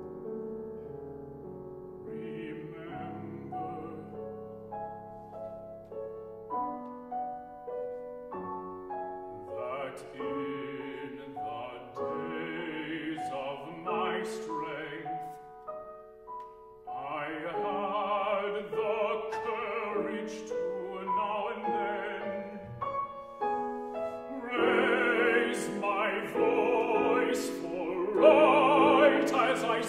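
A baritone singing a contemporary art song, accompanied by a Steinway grand piano. The piano carries the opening seconds with slow chords. The voice then comes in with a wide vibrato and grows louder toward the end.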